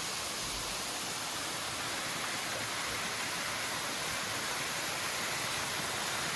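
A waterfall: a steady, even rush of falling water.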